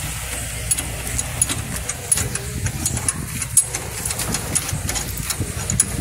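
Irregular light metallic clicks and ticks of a wrench working on a Renault Logan's steering tie rod end as it is threaded onto the tie rod, one sharper click about three and a half seconds in. A steady low hum like a running engine lies underneath.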